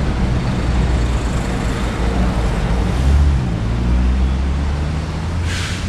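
Car engine running as the car rolls slowly, heard from inside the car as a steady low rumble whose pitch shifts slightly midway. A short hiss comes near the end.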